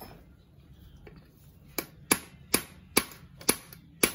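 Hammer knocking on the aluminium crankcase of a Yamaha F1ZR two-stroke engine to split the case halves. After a quiet stretch of handling, sharp knocks come in an even run of about two a second from about halfway through.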